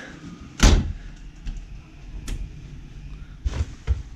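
A wooden casement window being unlatched and opened, with a loud knock about half a second in, then a sharp click and a few lighter knocks from the latch and frame.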